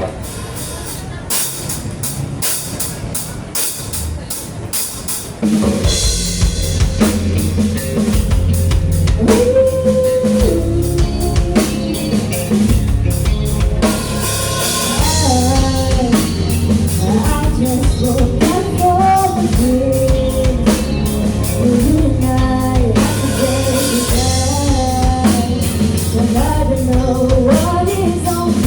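Live rock band playing: drum hits for the first few seconds, then the bass and full band come in about five and a half seconds in, and a singer's voice carries the melody over them from about nine seconds on.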